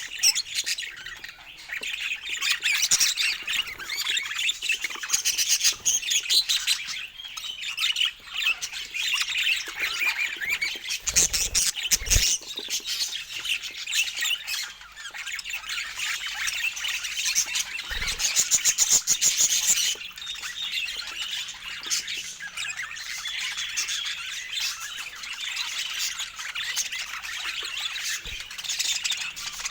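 A group of budgerigars chattering, chirping and squawking without pause, many voices overlapping. A few brief low thumps sound about a third of the way in and again past the middle.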